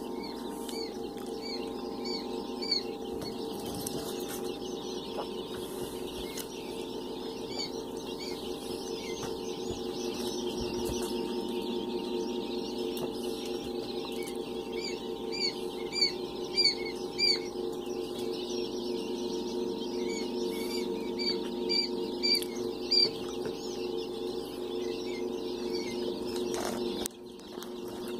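Newborn giant and Chinese quail chicks peeping: runs of short, high peeps that come and go, over a steady low hum.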